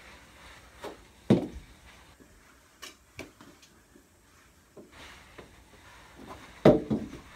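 Knee hockey play with plastic mini sticks and a small ball: a few light clacks and taps, and two heavy thumps, one about a second in and one near the end.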